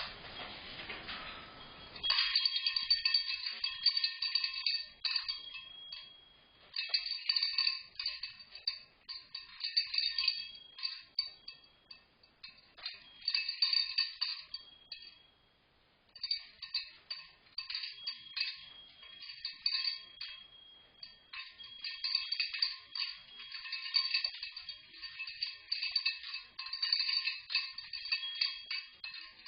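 Cockatoo ringing its cage bells over and over: small metal bells jingling in repeated bursts, with short lulls in between.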